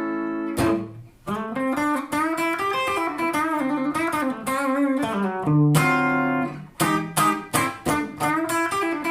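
Ibanez Jem electric guitar played through a Kemper profile of a 1959 Marshall Super Lead 100-watt plexi on its clean channel with no pedals: a held chord, then quick single-note runs, a sustained note a bit past halfway, and more fast licks. The tone sounds a little muffled.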